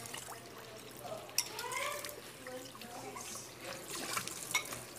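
Water running at a kitchen sink, with a few sharp clinks of utensils on cookware and faint voices in the background.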